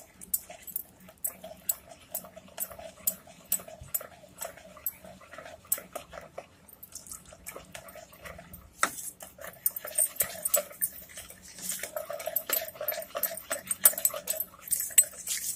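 Wire whisk beating thick ghevar batter of flour, ghee and chilled milk in a plastic bowl: rapid, irregular clicking and ticking of the wires against the bowl. A whine comes and goes in the background, a second or so in and again near the end.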